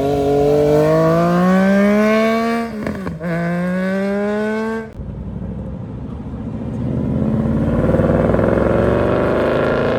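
Car engine accelerating hard: the pitch climbs through one gear, drops at an upshift about three seconds in, climbs again, then lets off about five seconds in. A rougher engine rumble builds over the last few seconds.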